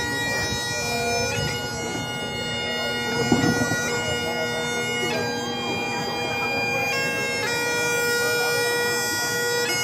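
Great Highland bagpipe playing: the drones hold one steady tone while the chanter moves slowly from one long-held note to the next, every second or two, in the slow manner of piobaireachd.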